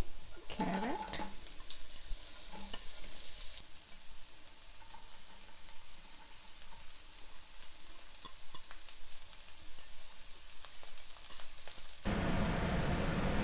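Shredded carrot and sliced leeks sizzling as they are stir-fried in hot oil in a wok, with scattered clicks. Near the end the frying turns suddenly louder and fuller.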